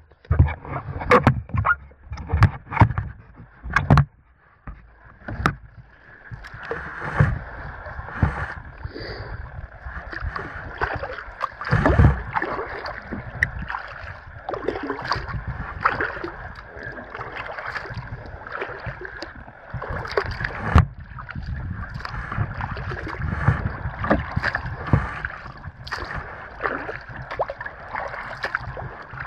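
Kayak being paddled on calm lake water: paddle blades dipping and dripping, with water swishing and lapping along the hull. There are several sharp knocks in the first four seconds.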